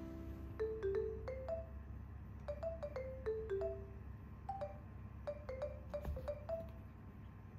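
Background music: a slow, sparse melody of short single notes.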